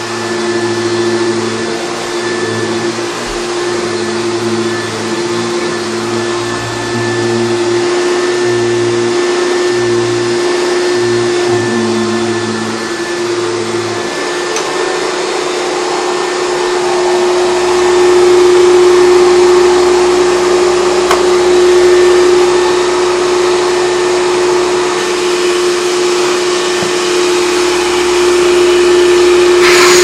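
Hoover Turbopower 3 U2880 upright vacuum cleaner running, a steady motor drone with a constant mid-pitched tone. About halfway through its lower rumble drops out, and a little later the running grows louder.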